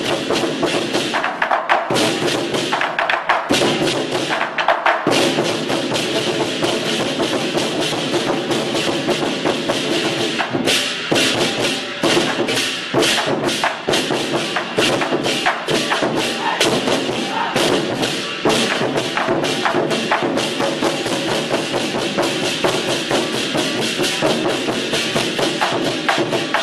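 Lion-dance drum ensemble: a row of large barrel drums beaten with sticks, together with clashing hand cymbals, playing a fast, dense rhythm.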